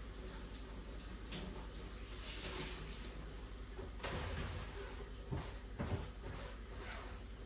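Cleaning at a kitchen sink: water from the tap runs in short spurts, and two sharp knocks of objects against the sink or counter come a little past the middle.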